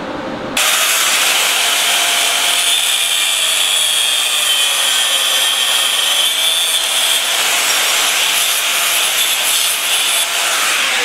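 Electric angle grinder biting into a metal rod and throwing sparks, running steadily under load with a high whine. It starts suddenly about half a second in and cuts off just before the end.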